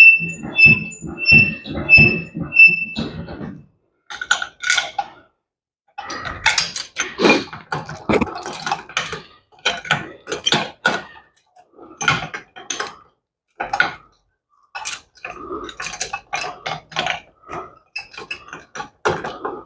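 Chain hoist clicking evenly, about three clicks a second, as its hand chain is pulled. Then irregular metal clanks and chain rattles as the engine hangs on the hoist and is worked down into the motorcycle frame.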